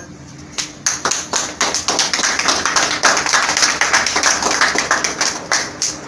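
A small group of people clapping by hand, starting about half a second in.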